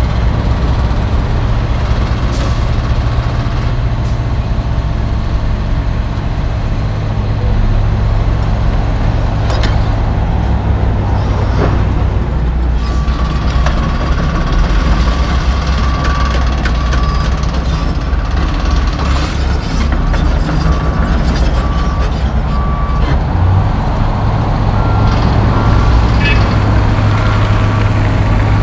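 Diesel engines of a track excavator and dump trucks running steadily, with a dump truck's reversing alarm beeping in long stretches as a truck backs in to be loaded. Occasional knocks and clunks sound over the engine noise.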